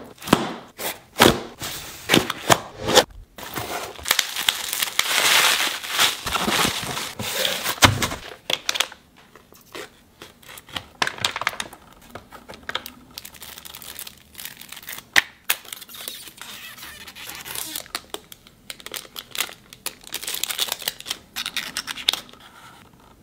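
Packaging being opened by hand: a knife slitting the tape on a small cardboard box, then cardboard and wrapping torn and crinkled, with many sharp taps and scrapes as a playing-card box is handled and opened.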